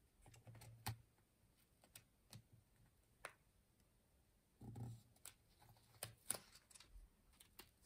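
Quiet, scattered light clicks and crinkles of paper being handled: the backing paper peeled back from a large paper sticker as it is laid down onto a planner page.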